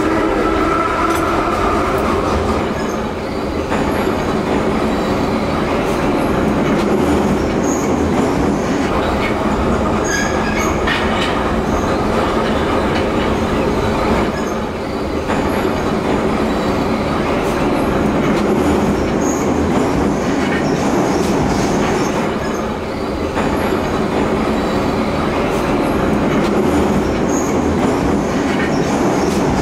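A converted Ezh3 metro carriage, now a track-measuring car, running along a metro line, heard from the driver's cab. A whining tone at the start fades away after two or three seconds. After that comes a steady roar of wheels on rail with scattered clicks over the rail joints, dipping briefly in loudness a few times.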